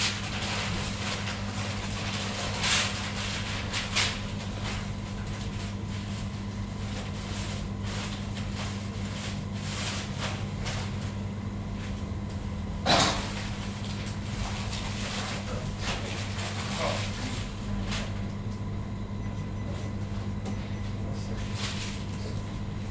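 A steady low electrical hum with background noise, broken by a few scattered knocks, the loudest about thirteen seconds in.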